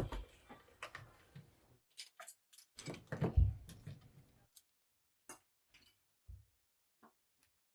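Kitchen utensils and containers being handled: scattered light clicks and taps, with a louder clattering knock about three seconds in.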